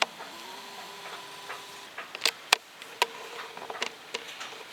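Scattered sharp clicks and knocks of objects being handled and bumped, strongest around the middle, over a faint steady tone in the first couple of seconds.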